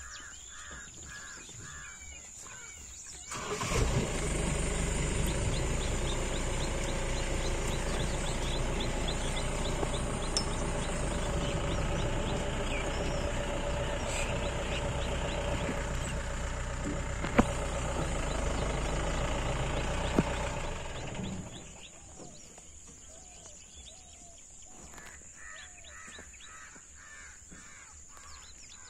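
Safari jeep's engine starts with a sudden onset about three seconds in, runs steadily with a low rumble, and stops about eighteen seconds later. Before and after it, a bird calls over and over.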